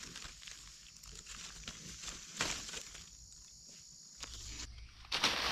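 Dry leaf litter rustling and crackling as a mushroom is cut from the soil with a knife and lifted out by a gloved hand, with louder rustling near the end.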